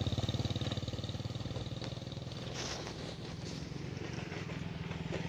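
A small engine running steadily with a fast even putter, fading over the first couple of seconds and growing louder again near the end.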